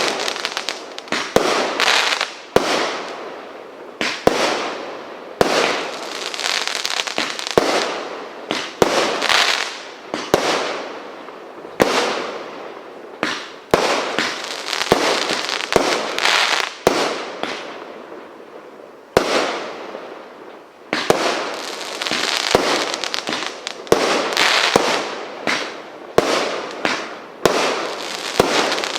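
Fireworks going off in a rapid series: sharp bangs about once a second, each trailing off into a crackling hiss.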